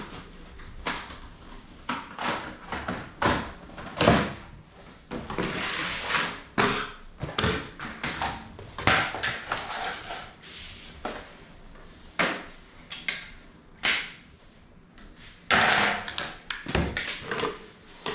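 Clatter and rustle of a cat flap being unpacked: plastic parts and packaging handled and set down on a tiled floor. It comes as irregular knocks and clicks, with a few longer rustles.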